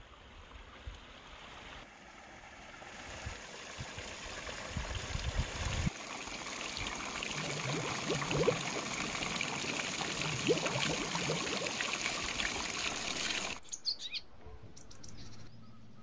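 Spring water splashing and trickling into a stone basin, growing louder over the first few seconds and cutting off suddenly about two and a half seconds before the end. A few short bird chirps follow.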